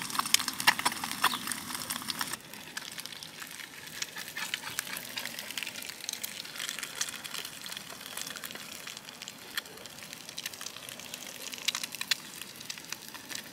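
An egg frying in a pan: a steady sizzle with scattered crackles and pops, easing a little about two seconds in.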